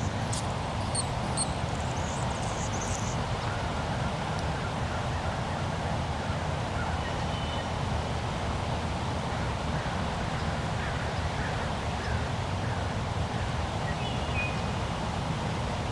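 Hummingbird chipping: a run of short, very high, sharp chip notes in the first three seconds. Other birds call faintly later, over a steady low background hiss.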